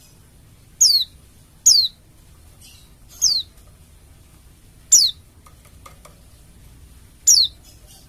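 Bali 'dakun' white-eye (pleci) giving five short, sharp calls, each sliding steeply down in pitch, spaced about one to two seconds apart.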